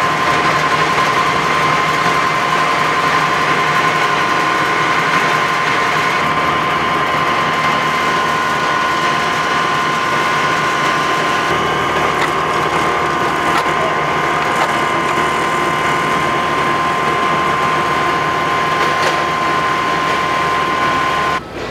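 A mobile paper-shredding truck's machinery running: a steady mechanical clatter with a constant high whine, and a few light knocks part-way through. It cuts off suddenly near the end.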